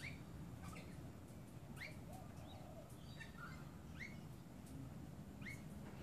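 Rainbow lorikeets calling while feeding on the ground: short rising chirps, about one a second, over a low steady rumble.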